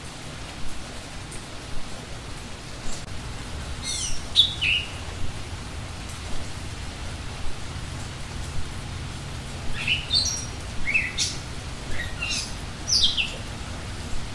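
Wild birds singing: short groups of quick, falling high chirps about four seconds in and again between about ten and thirteen seconds, over a steady background hiss.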